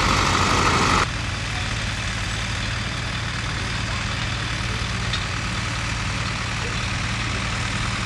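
Ford farm tractor's diesel engine running steadily as it pulls a plough through a match plot. A louder sound in the first second cuts off abruptly about a second in.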